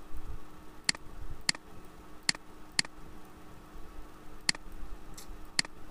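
Computer mouse clicking six times at uneven intervals, sharp short clicks, over a faint steady hum.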